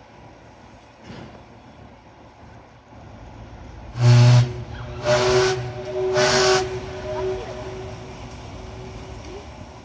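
Paddle steamer Waverley's steam whistle sounding three short blasts, each a hissing, chord-like tone about half a second long, with the tone ringing on for a couple of seconds after the last. Three short blasts is the ship's signal that her engines are going astern.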